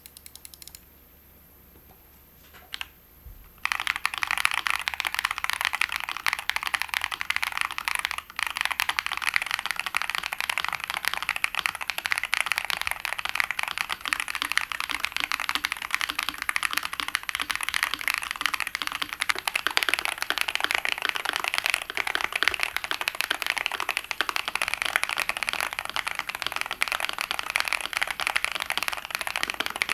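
Fast, continuous typing on a Monsgeek M5 mechanical keyboard with Akko Lavender Purple Pro V3 switches, in a dense rattle of key clicks. A few stray keystrokes come first, then steady typing starts about four seconds in, with a short pause around eight seconds.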